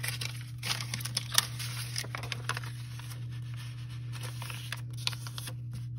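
Sheets of craft paper rustling and sliding against each other in irregular short strokes as they are picked up and handled, over a steady low hum.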